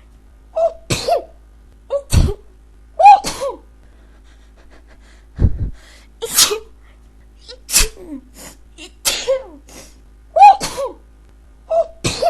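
A woman sneezing again and again in a fit: about nine loud sneezes in quick succession, a second or so apart.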